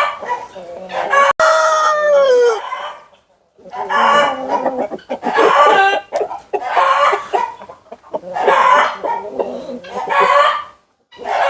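Roosters crowing and chickens clucking: one long crow tails off with falling pitch about two seconds in, then a run of shorter calls follows.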